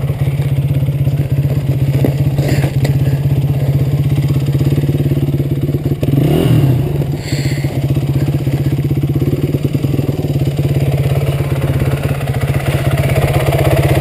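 Honda CRF250X dirt bike's single-cylinder four-stroke engine idling steadily, with one brief blip of the throttle about six and a half seconds in.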